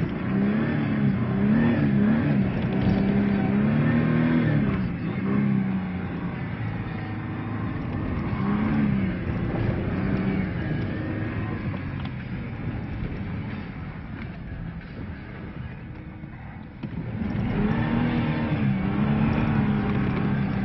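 Ford Ranger pickup's engine revving up and down repeatedly while it is driven in two-wheel drive on snow. The revs ease off for a few seconds in the middle, then climb and fall again near the end.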